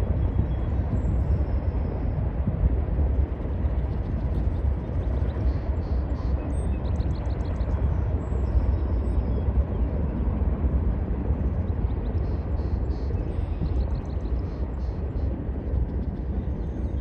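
Freight train of covered hopper cars rolling steadily across a stone arch bridge: a continuous low rumble of wheels on rail, with faint high ticking scattered through it.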